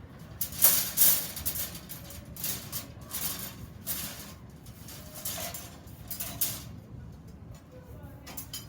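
Workshop handling of iron parts by hand: a string of irregular short scraping and clattering noises, about a dozen over several seconds, with no power tool running.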